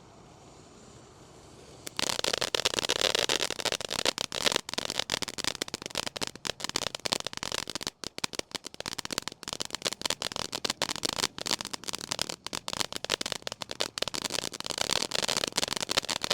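Black Cat Close Encounters fountain firework going off: after a faint start, about two seconds in it breaks into a loud, dense crackling of many rapid pops that keeps on without a break.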